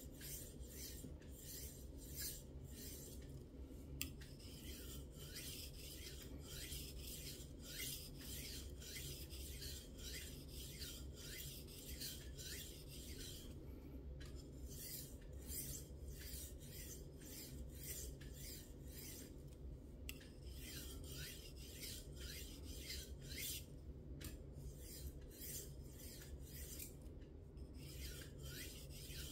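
Victorinox 5.5600.18 knife blade stroked back and forth on an oiled natural whetstone, a faint scraping rasp about twice a second with a few short pauses. Light-pressure semi-finishing strokes that smooth the edge after the burr has been raised.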